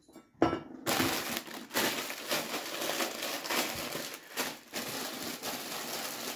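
Plastic bag of salad leaves crinkling and crackling as it is handled and opened, after a single knock about half a second in.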